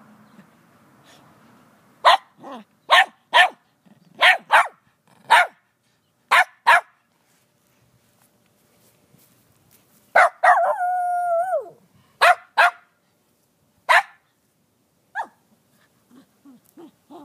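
Small white dog barking over its tennis ball: a string of short, sharp barks, a drawn-out whining howl about ten seconds in, then a few more barks.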